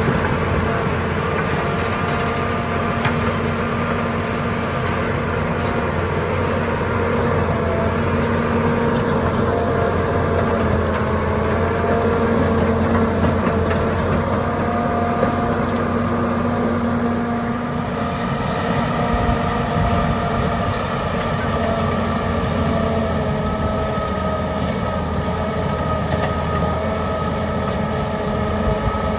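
John Deere 850 crawler dozer's diesel engine running steadily as the machine pushes dirt, its tone shifting slightly about eighteen seconds in.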